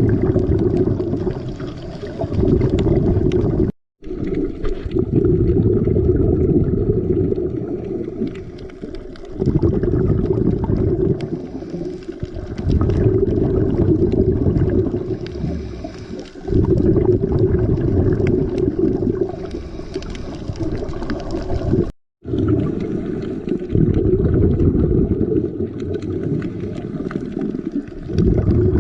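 Underwater sound of scuba divers breathing through their regulators, with exhaled bubbles rumbling in surges every few seconds. Two short breaks occur at edit cuts.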